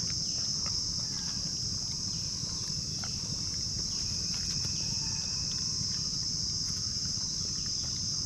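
A steady, high-pitched insect chorus drones on without a break, with a few faint ticks and rustles over it.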